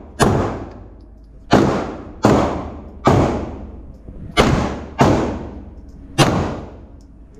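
Seven handgun shots fired one at a time at an uneven, unhurried pace. Each sharp crack trails off in a long echo off the concrete of an indoor shooting range.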